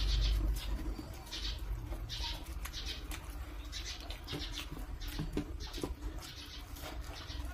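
Close-miked chewing of fried momos by two eaters: crisp, wet mouth sounds and bites repeating roughly every half second to second. A low bump sounds at the very start.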